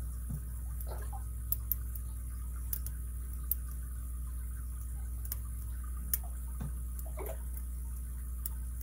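Scattered faint metallic clicks and light scrapes of a lock pick and tension wrench working the pins inside a Master Lock M15 padlock during single-pin picking, irregular and a second or more apart, over a steady low hum.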